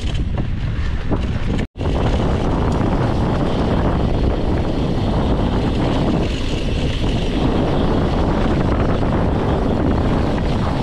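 Mountain bike rolling fast down a dirt trail, with wind buffeting the GoPro's microphone over the tyre noise. The sound cuts out completely for an instant nearly two seconds in.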